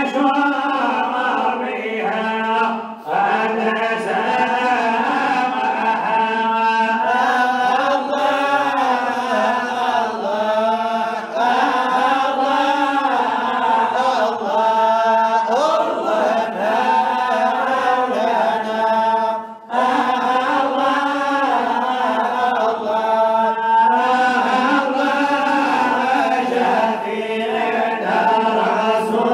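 Unaccompanied male chanting of a Sufi samaa qasida, one long winding melody with no instruments, breaking off briefly twice, about 3 seconds in and again near 20 seconds.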